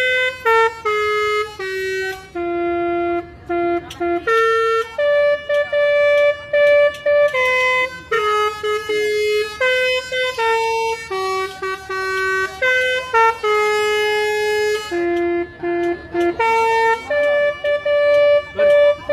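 Bus telolet basuri multi-tone horn playing a melody: a long string of held notes that step up and down in pitch, with short breaks between phrases.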